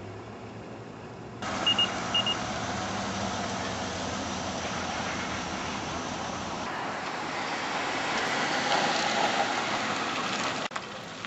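Car and traffic noise, swelling louder late on and cutting off abruptly near the end, with two short high beeps about two seconds in.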